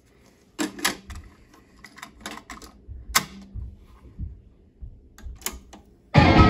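Mechanical clicks and clunks from a Marantz 5220 cassette deck as a cassette is loaded and its piano-key transport buttons are pressed, in several separate groups. Near the end the tape starts playing and rock music comes in suddenly.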